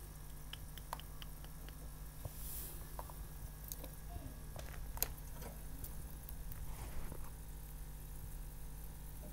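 Pet rats clambering on the wire bars of their cage door: scattered faint clicks and scrapes of claws on metal, the sharpest one about five seconds in, over a steady low hum.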